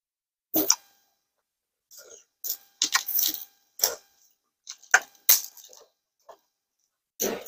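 Close-miked eating sounds from a bowl of kimchi stew: slurps, lip smacks and chewing, with sharp clicks of chopsticks. They come in several short, irregular bursts.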